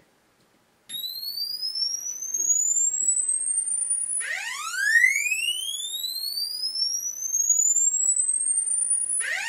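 Swept sine-tone test signal, a ramp from about 50 Hz to 10 kHz made by a sound-card signal generator, played through an LM386 audio amplifier IC with the amplifier no longer bypassed, so it comes out a good deal louder. It comes in about a second in partway up the sweep, then restarts low and rises to a high whistle about every five seconds, with fainter overtones rising alongside.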